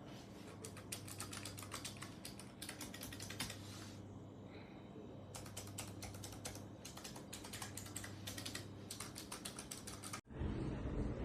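Typing on a Keychron low-profile optical mechanical keyboard: quick runs of light key clicks, a short pause about four seconds in, then more typing. About ten seconds in the sound cuts off abruptly to a louder low rumbling background.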